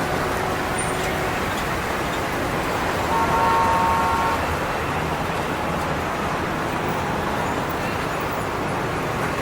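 Steady road-traffic noise, with a vehicle horn sounding once about three seconds in and held for about a second and a half.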